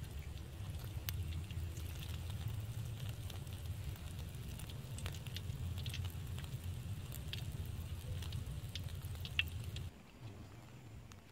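Battered onion ring fritter frying in shallow oil in an aluminium pan: scattered small crackles and pops over a steady low rumble. The sound drops away suddenly near the end.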